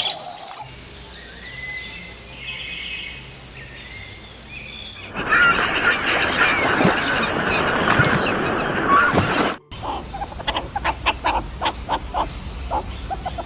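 Farm fowl calling outdoors, heard in three short clips that cut abruptly from one to the next. The last clip is a quick run of short, repeated calls.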